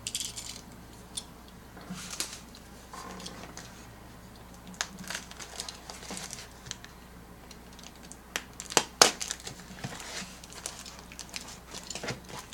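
A package being handled and opened: crinkling and tearing of packaging, with scattered rustles and sharp clicks. The loudest comes about nine seconds in.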